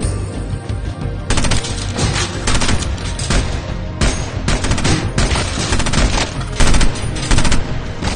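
Rapid automatic gunfire in repeated bursts, starting a little over a second in, over a film score.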